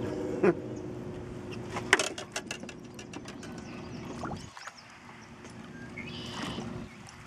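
Spinning reel being cranked as a smallmouth bass is reeled to the boat, with a quick run of sharp clicks about two seconds in.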